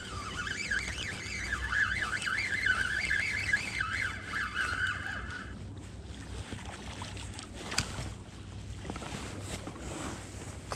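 Spinning reel being cranked to bring in a hooked small pike: a wavering whir from the reel's gearing that stops about halfway through, followed later by a single sharp click.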